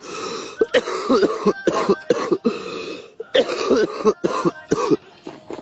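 A man coughing in a long fit: about a dozen harsh coughs in quick succession, stopping about five seconds in.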